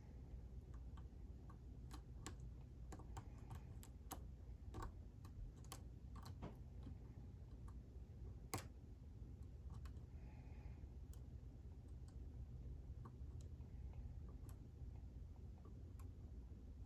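Faint, irregular small metallic clicks of a hook pick working the pin tumblers of a Sargent Signature lock cylinder held under a tension wrench, busiest in the first half with one sharper click midway, over a low steady hum.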